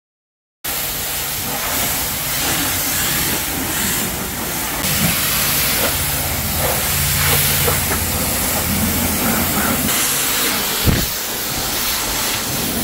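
High-pressure washer lance at a self-service car wash spraying water onto a car's bodywork: a steady, loud hiss with a low hum underneath, starting about half a second in.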